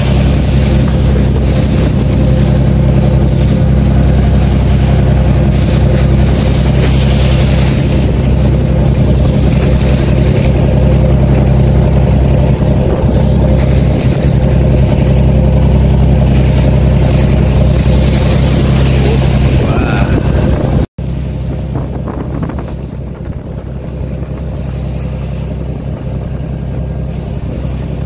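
A fishing boat's engine running steadily under way, a low, even hum with the rush of wind and choppy water over it. About three quarters of the way through, the sound cuts off for an instant and comes back quieter.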